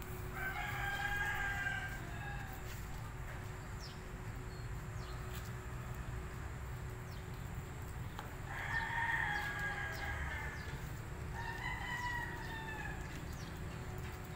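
A rooster crowing three times, each a long drawn-out crow: about a second in, around nine seconds in and about twelve seconds in, over a steady low rumble.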